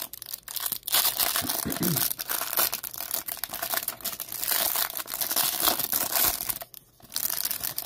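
Clear cellophane wrap being torn and peeled off a stack of Topps baseball cards from a hanger pack. It makes continuous crinkling and crackling, with a brief pause near the end.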